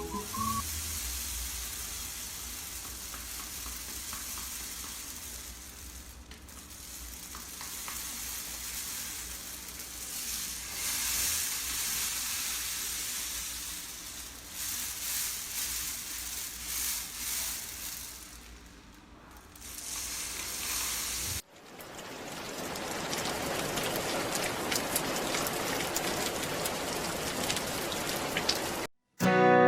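Homemade rain stick, a cardboard tube with rice and crumpled aluminium foil inside, being tipped from side to side: a rustling patter of rice grains falling through it, swelling and fading with each turn. About two-thirds of the way through it cuts to a steadier hiss.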